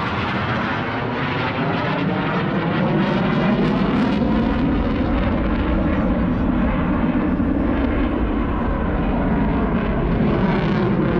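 Aircraft flying past at an airshow: a loud, continuous rush of engine noise, with a slowly shifting pitch.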